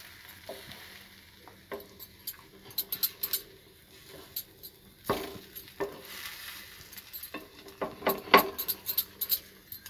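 Wooden spatula scraping and tapping on a tava as slices of egg-dipped bread are flipped, with a soft sizzle of the bread frying in ghee underneath. The clicks come irregularly, loudest about eight seconds in.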